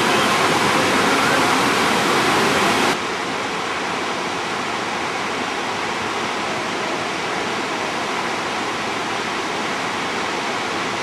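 Steady rushing of a tall waterfall plunging down a cliff face. About three seconds in, the rush drops suddenly to a quieter, duller level.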